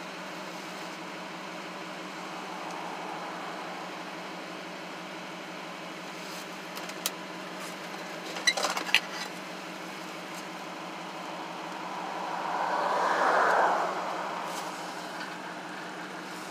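Pickup truck engine idling steadily, heard from inside the cab. A few clicks come about seven and nine seconds in, and near the end a swell of noise rises and falls over about two seconds.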